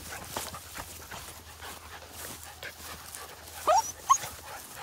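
Beagle puppies scuffling in grass, with steady rustling and light knocks. About three and a half seconds in come two short, high puppy cries, the first rising in pitch.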